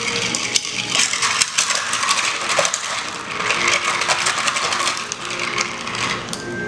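Bar spoon stirring a cocktail over ice in a tall glass: ice cubes and spoon clinking rapidly against the glass.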